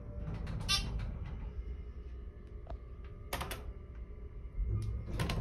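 ThyssenDover hydraulic elevator's pump motor running with a steady low hum, with a few sharp clicks and knocks: one about a second in, one past the three-second mark and a cluster near the end.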